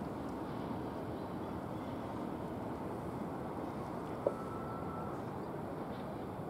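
Steady, distant rumble of a Class 66 freight locomotive's two-stroke diesel engine as the train crawls towards the listener, with a single sharp click about four seconds in.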